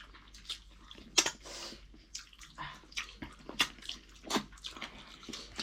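Wet eating sounds close to the microphone: irregular smacks and squelches of chewing, a few to the second.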